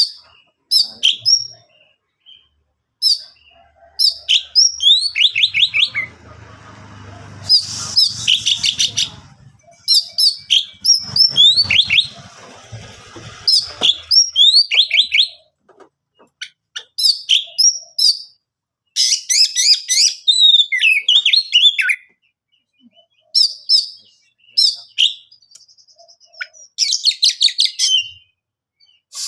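Oriental magpie-robin singing: rapid phrases of sharp chirps, whistles and slurred notes, in bursts separated by short pauses. A low background noise sits under the song from about six to fourteen seconds in.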